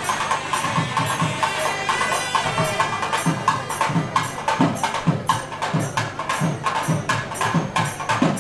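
South Indian temple procession music: a thavil drum playing a fast pattern of sharp cracks with deep strokes a little under twice a second, over a steady held reed tone typical of the nadaswaram.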